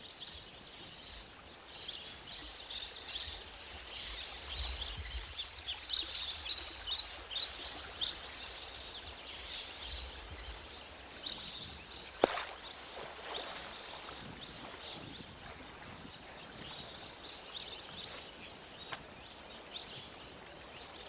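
Many small birds chirping and twittering continuously in short, high calls, the sound of a nesting bird colony, with a single sharp knock about twelve seconds in.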